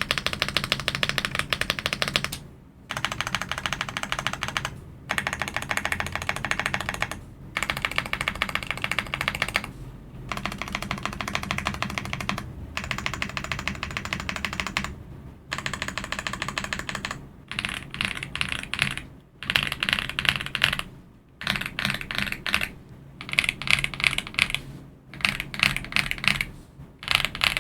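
AULA F75 mechanical keyboard with LEOBOG Reaper switches being typed on fast, in bursts of about two seconds with short pauses between them. From a little past halfway the bursts are shorter and brighter, with the clacks packed more tightly.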